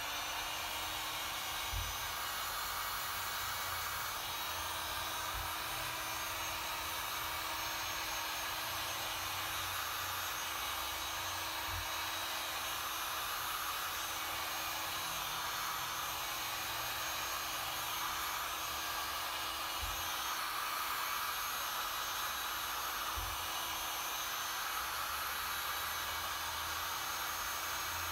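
DeWalt heat gun running steadily: a constant rush of blown air with a low fan-motor hum that comes up to speed right at the start. A few faint handling bumps now and then.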